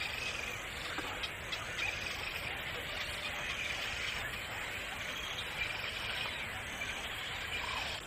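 Steady outdoor background noise, an even hiss with no distinct events and faint wavering high traces.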